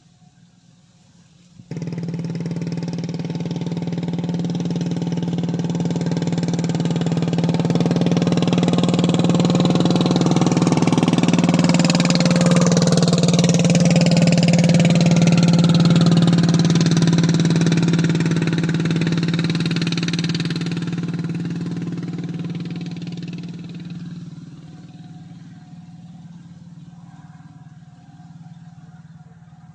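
A motor engine running, growing louder to a peak and then fading away, its pitch dropping in the middle as it passes close by.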